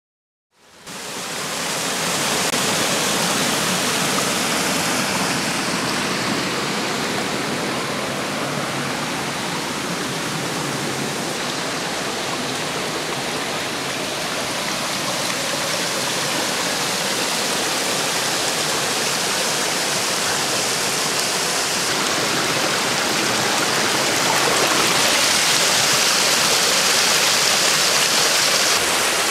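Rushing water of a millstream, pouring down the wooden flume that feeds a small water mill: a steady rush, growing louder near the end.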